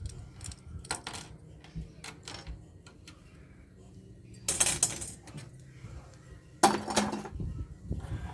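Small metal air-conditioner connectors clinking and clattering as they are handled: a few light clicks, a clattering rattle about four and a half seconds in, and a sharp clink a couple of seconds later.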